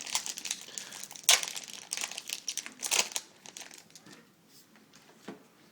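Foil booster-pack wrapper being crinkled and crumpled in the hands, a dense crackling that is busiest for the first three seconds, with the loudest crackles about a second and three seconds in, then dies away.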